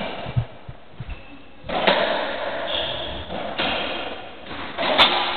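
Racketball ball struck by rackets and hitting the walls and floor of a squash court: several sharp hollow knocks ringing in the court, the loudest about two seconds in and just before the end.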